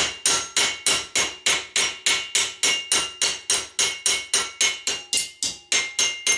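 Metal hammer tapping rapidly on a brass ramrod-thimble blank clamped in a bench vise, about four strikes a second, each with a ringing metallic note. The tab is being folded over the vise jaw into a sharp-cornered bend.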